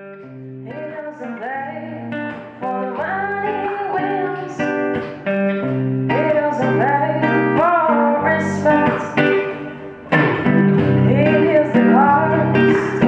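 A woman singing to a fingerpicked classical guitar, the guitar notes ringing under a sliding, ornamented vocal line. The playing gets fuller and louder about ten seconds in.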